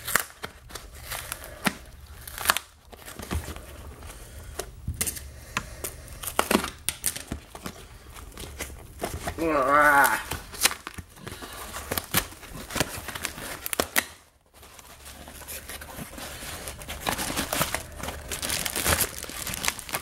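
Cardboard shipping box being pried and torn open by hand, with irregular tearing and crackling, then crumpled kraft-paper packing rustling as the box opens.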